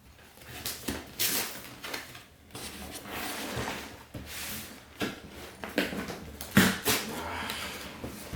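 Cardboard Lego box being opened and its plastic bags of bricks handled: irregular rustling and scraping with several sharp knocks and clicks, the loudest about six and a half seconds in.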